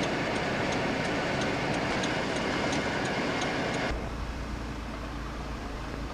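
Steady running noise of a moving vehicle, with a light, high tick repeating about three times a second. About four seconds in, it cuts abruptly to a quieter noise with a steady low hum.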